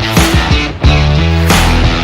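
Rock music with distorted guitars and a steady drum beat.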